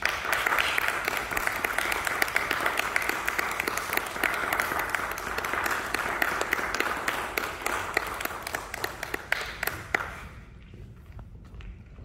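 Audience applauding, starting suddenly and dying away about ten seconds in, followed by a few faint taps.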